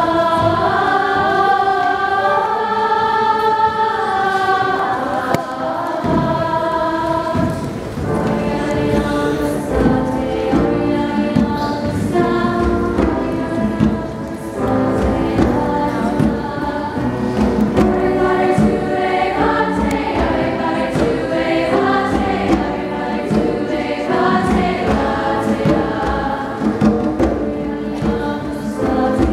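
School choir singing together in harmony, with a low rhythmic accompaniment coming in about six seconds in.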